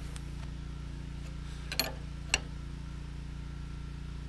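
Two light metallic clicks about half a second apart, as a wrench is fitted to a steel hydraulic hose fitting to tighten it into its bracket. A steady low hum runs underneath.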